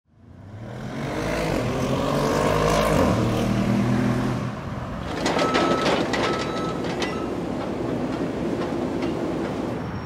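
City street ambience. A large vehicle's engine rumbles and passes over the first few seconds, then knocks and clatter follow, with two short beeps.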